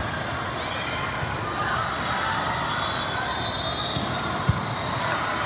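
Echoing volleyball-hall din of many courts: background voices, balls bouncing and scattered sneaker squeaks. About four and a half seconds in comes one sharp smack of a hand striking the ball as a player attacks at the net.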